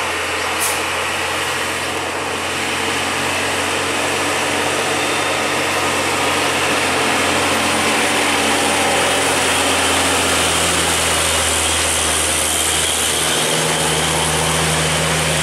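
Diesel engine of a Hino box truck pulling uphill through a steep hairpin bend: a steady engine drone that grows louder as the truck nears and passes.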